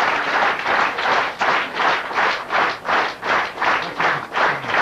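Audience applause that, about a second in, turns into rhythmic clapping in unison, about two and a half claps a second.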